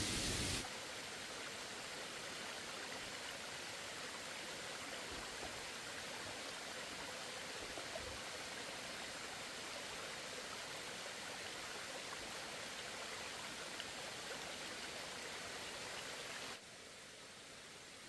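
Steady rushing outdoor ambience, an even hiss like flowing water, with a few faint ticks. It drops abruptly to a quieter level about half a second in and again near the end.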